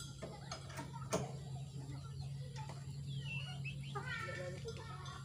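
Drum hardware clicking and knocking as tom drums are fitted onto the bass drum's mount, with one sharp knock about a second in. A steady low hum runs underneath, and animal calls come in during the second half.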